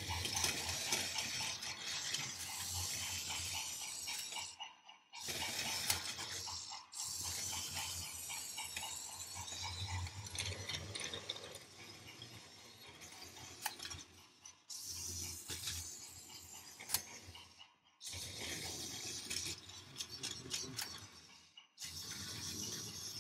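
Battery-powered Imaginarium Power Rails toy train engine running along plastic track with two wagons: the small electric motor and gears whirring, with the wheels rattling. The sound stops for a moment about five times.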